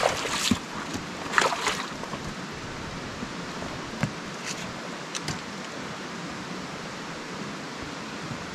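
A river running steadily, an even rushing hiss of water, with a few brief louder noisy bursts in the first two seconds and a couple of faint clicks around four to five seconds in.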